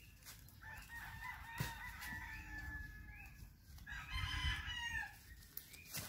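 Rooster crowing twice: a long crow held for about two seconds, then a louder crow about four seconds in that falls away at its end. A single sharp knock comes during the first crow.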